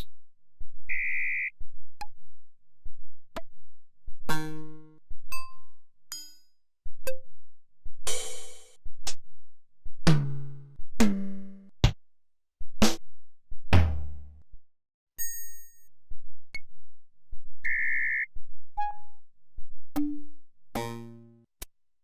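A series of short synthesized phone sound effects from a KTF EVER X8000 handset's Yamaha MA-5 sound chip, played through the phone's speaker one after another: drum-machine hits, bleeps and brief synth notes, several each second, each different from the last.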